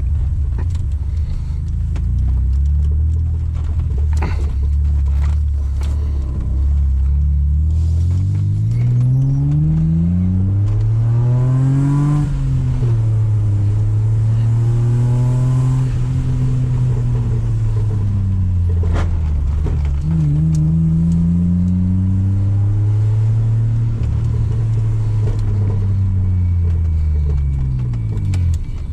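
BMW E36 320i's 2.0-litre inline-six, running without catalytic converters, under way: the engine note climbs under acceleration, drops sharply at a gear change about twelve seconds in, then holds a fairly steady cruising pitch with small rises and falls, and falls away near the end.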